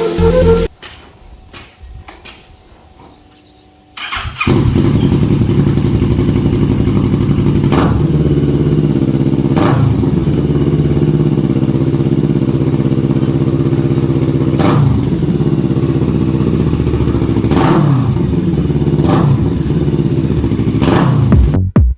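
Kawasaki Vulcan S 650's parallel-twin engine through a Delkevic slash-cut exhaust, started about four seconds in and then idling. Several short throttle blips rise and fall over the idle, about six in all.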